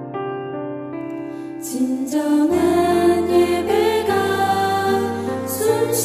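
Background music: soft sustained keyboard notes that fill out and grow louder about two seconds in.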